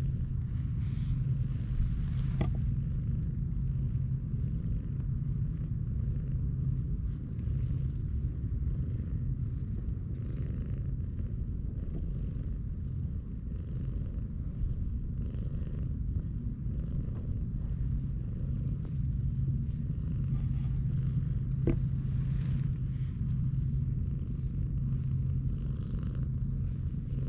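A cat purring steadily and close up while being stroked, a low even rumble that runs on without a break.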